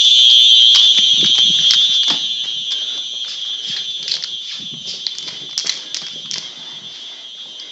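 Simplex horn strobe fire alarm sounding a continuous high-pitched tone. It fades steadily from about two seconds in. Faint clicks and knocks sound over it.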